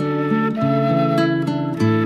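Gentle instrumental background music: a flute-like melody of held notes over a soft plucked accompaniment.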